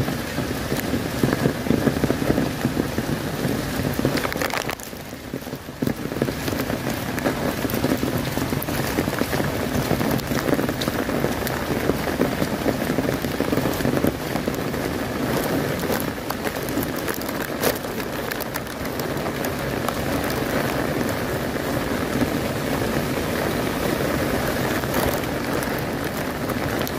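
Heavy rain falling on an umbrella held overhead and on a wet paved path, a dense, even patter of drops. It eases briefly about five seconds in, then carries on as before.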